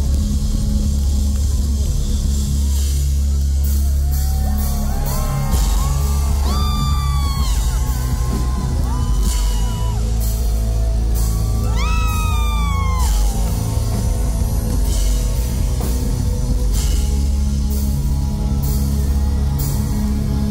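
Live rock band playing loudly: heavy bass and drums with electric guitar. About six seconds in, and again about twelve seconds in, a long note bends up, holds and then slides down.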